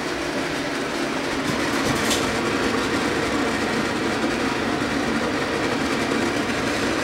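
Newly installed bathroom ceiling exhaust fan running, a steady hum over an even rush of air drawn through its grille.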